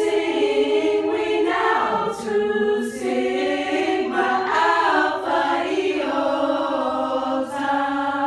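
A small group of women singing unaccompanied in harmony, a slow song with each chord held for a second or more before moving to the next.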